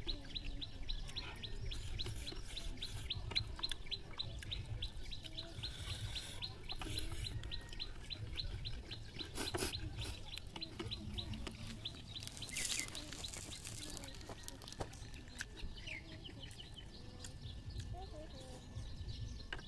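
A bird chirping rapidly and evenly, about four high chirps a second, stopping about eleven seconds in. Faint sounds of eating by hand run underneath: rice being mixed on a plate, and chewing.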